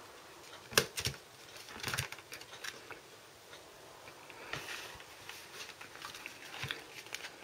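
Light clicks and taps of hands handling a plastic DVD case and its discs, with a brief soft rustle about halfway through.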